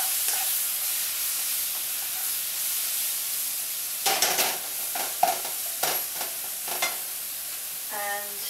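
Leeks frying in olive oil with a steady sizzle while a cooking utensil stirs them in a non-stick frying pan. Several knocks and scrapes of the utensil against the pan come between about four and seven seconds in.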